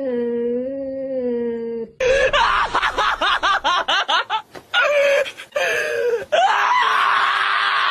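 A cat's long, wavering yowl at another cat in a standoff, cut off about two seconds in. A dog then screams while held on a vet's exam table, first in rapid choppy cries, then from about six seconds in one continuous loud scream.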